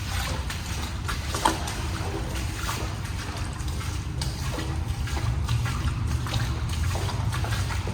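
Footsteps wading and splashing through shallow water, with a steady low rumble underneath and one sharp knock about one and a half seconds in.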